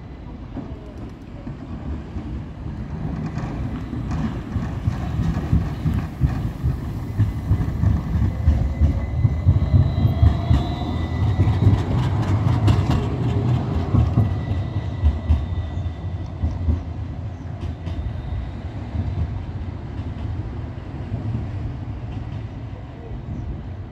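Bozankaya low-floor electric tram approaching and passing close by: its rumble builds to a peak about halfway through, with clicks of the wheels over the track and a faint whine that shifts in pitch as it goes by, then fades away.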